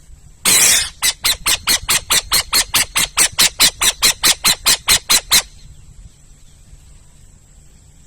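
An owl calling: one harsh, raspy screech about half a second in, then a fast, even run of about twenty short raspy notes, some four or five a second, that stops about five and a half seconds in.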